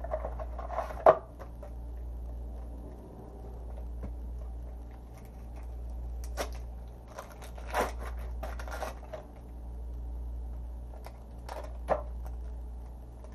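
An adhesive bandage being unwrapped: its paper wrapper crinkles and tears in a few short, scattered bursts, over a steady low room hum.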